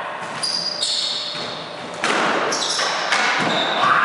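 Squash rally: several sharp hits of racquet on ball and ball against the walls, each echoing in the enclosed court, with sneakers squeaking on the hardwood floor in between.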